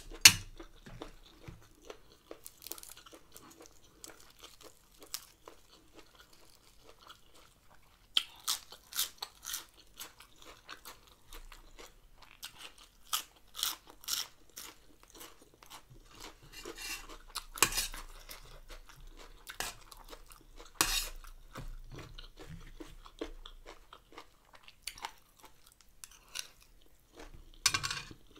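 A woman chewing a mouthful of stir-fried chicken gizzards with basil and rice close to the microphone. The sound is irregular crunches and wet mouth clicks, coming in bunches.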